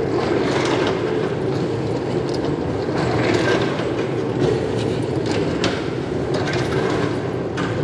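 Hand-pumped rail trolley rolling on its steel wheels along the track: a steady rumble with scattered sharp clicks and clanks.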